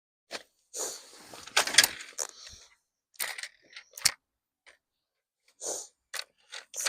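Plastic toy vehicles being handled in a sandbox: irregular rustling and scraping, with a few sharp clicks.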